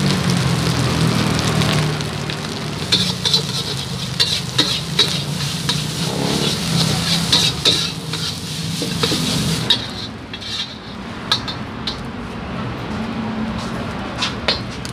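Rice sizzling in a hot wok while a metal spatula stirs and scrapes it against the pan, with many quick sharp scraping strokes. After about ten seconds the sizzle dies down.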